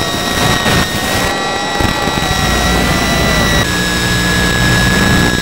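The small electric motor and propeller of an ultra-micro RC plane whining steadily over wind and radio hiss, heard through the onboard FPV camera's audio. About three and a half seconds in, the whine steps slightly lower in pitch.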